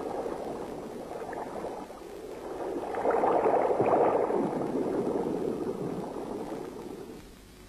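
Underwater bubbling and gurgling, swelling about three seconds in and then fading away near the end.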